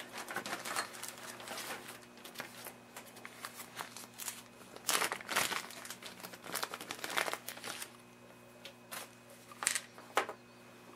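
Plastic parts bag crinkling in irregular bursts with small sharp clicks as small parts are handled, over a faint steady low hum.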